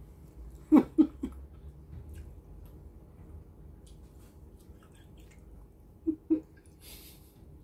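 A person eating and chewing, with a pair of short, loud mouth sounds about a second in and another pair near the end, and a brief hiss shortly before the end.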